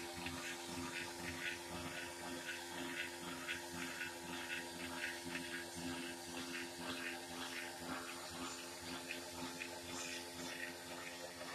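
Maxwell VWC 1200 vertical windlass running unloaded on its 12-volt electric motor and gearbox: a steady motor hum with a whirring hiss at an even level.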